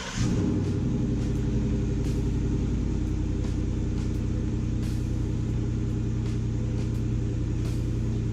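Ford F-150's 5.0 Coyote V8 catching right after being started, then idling steadily.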